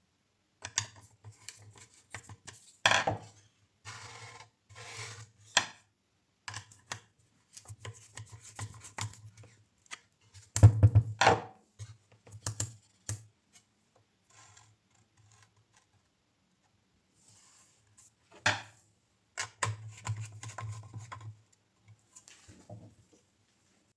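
Intermittent rubbing, scraping and knocking of wooden pieces being handled and slid against one another, with a few louder knocks.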